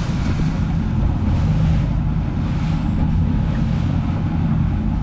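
Boat engine running steadily at trolling speed, mixed with the rush of choppy water and wind buffeting the microphone.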